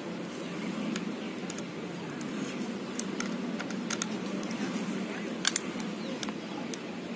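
Scattered light metallic clicks and clacks as an INSAS rifle's moving parts are slid and handled by hand in the opened receiver, over a steady background noise.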